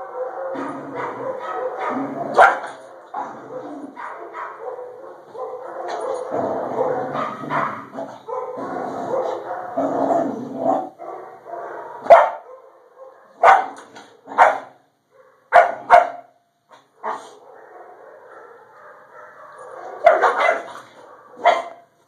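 Golden retriever puppy vocalising over its food bowl: continuous dog sound for the first half, then a run of short, sharp barks at irregular intervals. This is food guarding, a puppy that bites over its food.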